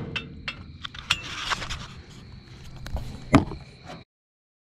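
Metal trailer-hitch hardware being handled by hand: scattered clinks and knocks of the safety chains and coupler, a short scrape, and one loud clank about three and a half seconds in. The sound cuts off abruptly just after four seconds.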